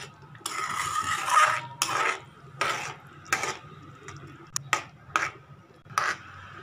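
A metal spoon stirring thick curry gravy in a metal kadai, scraping and clinking against the pan: one longer scrape about half a second in, then a string of shorter scrapes and taps.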